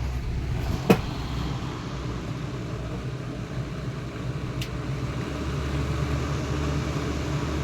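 Edison 12-inch box fan running on low speed, a steady low hum of the motor with the rush of air from the blades. A single sharp click about a second in.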